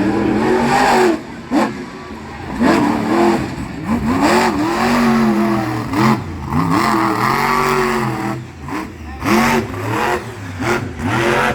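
Monster truck engine revving hard in repeated bursts, its pitch climbing and falling again about once a second, with a few sharp breaks between revs.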